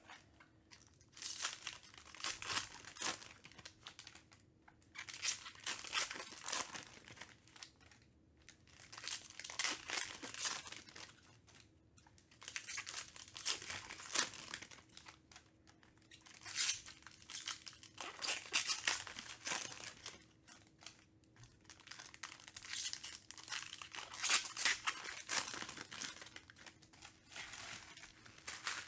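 Foil wrappers of Panini Prizm baseball card packs being torn open and crinkled by hand, one pack after another. The sound comes in bursts about every four seconds, with short quiet gaps between them.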